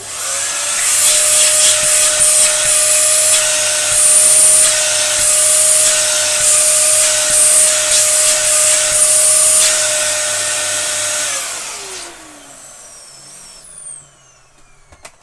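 Dyson DC07 Animal upright vacuum cleaner starting abruptly and running loud and noisy with a steady high whine for about eleven seconds, then switched off, its motor whining down in pitch as it spins to a stop.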